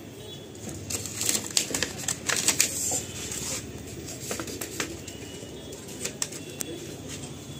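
Crinkling and crackling of a TV's thin plastic backlight reflector sheet as it is handled and lifted at its edge. The crackling is densest about one to three and a half seconds in, then thins to a few scattered clicks.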